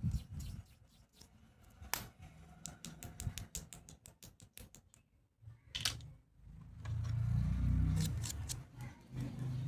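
Hard plastic toy medical tools being handled, making scattered clicks and taps. A louder, dull low rumble runs from about seven to eight and a half seconds in.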